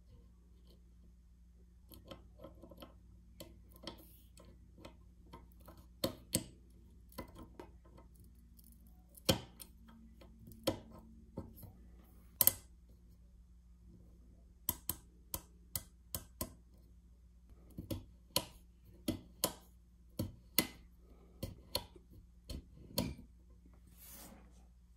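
The M1 Garand T105 rear sight's elevation knob being turned by hand, clicking through its detents in irregular runs of short, sharp clicks, a few of them much louder than the rest.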